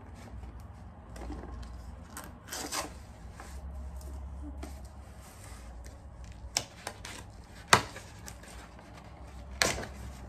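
Brown kraft-paper box being handled and opened by hand: rustling and crinkling of paper and cardboard, with a few sharp knocks, the loudest about three-quarters of the way in.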